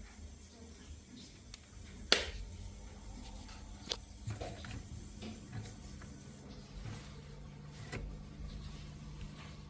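A sharp click about two seconds in, then a few lighter clicks and knocks, over a steady low hum.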